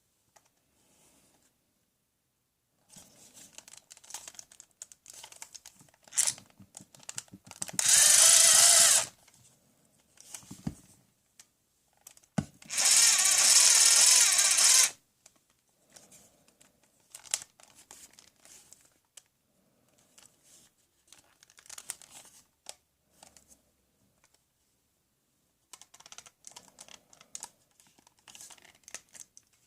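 Toy power drill running in two short bursts, the first about a second long and the second about two seconds, with plastic clicking and handling noise around them.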